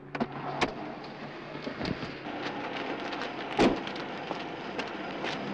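Night street sound: a steady hiss with a few light knocks and one loud thump about three and a half seconds in.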